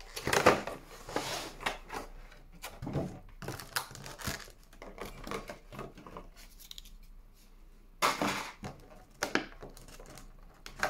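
Plastic packaging and cardboard of a Pokémon TCG collection box being handled, with irregular crinkles, crackles and clicks as a promo card is worked out of its plastic holder, where it is stuck tight.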